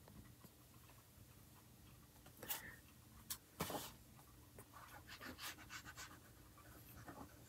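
Faint rubbing strokes of a glue stick worked back and forth over a scrap of book page, a few strokes a second in the second half. A couple of brief paper-handling sounds come before, near the middle.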